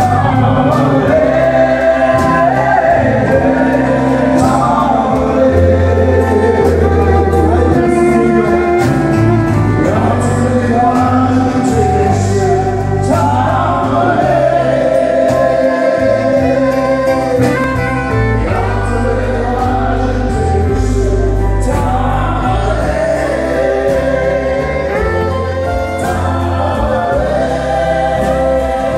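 Live country-western music: acoustic guitars and men singing into microphones, amplified through the stage sound system.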